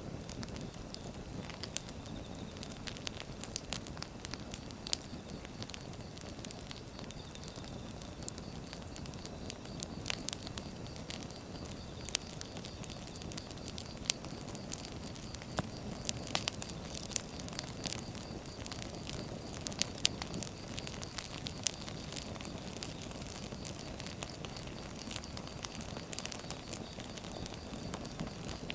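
Wood fire burning: a steady low rush of flames with frequent crackles and sharp pops of the burning logs.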